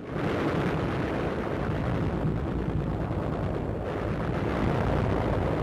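Artillery barrage: a loud, steady, dense rumble of shell bursts with no break, starting abruptly as the narration stops.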